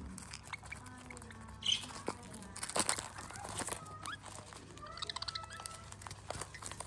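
Budgerigars chattering: short chirps, rising whistles and quick trills, with scattered clicks.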